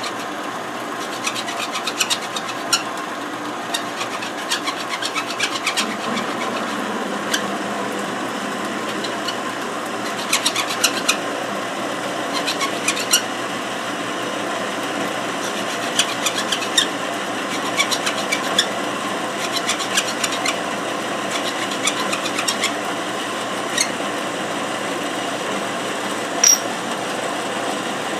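A power saw running steadily as it cuts aluminum stock, with many small sharp ticks scattered through the cut and one louder tick near the end.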